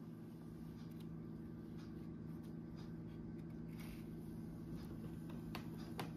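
Knife cutting a tray of set besan sweet into pieces: faint scraping strokes, with a couple of light clicks near the end, over a steady low hum.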